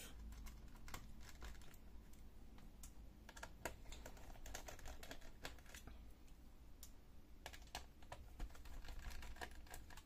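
Faint, irregular small clicks and ticks of a screwdriver unscrewing the screws of a laptop's metal hard-drive bracket, with light handling of the metal and plastic parts.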